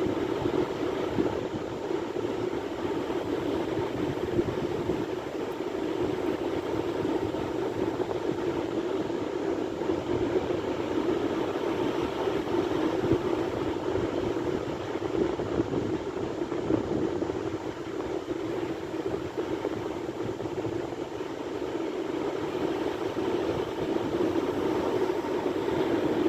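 Sea waves breaking along a shore, a continuous surf roar that swells and eases slightly.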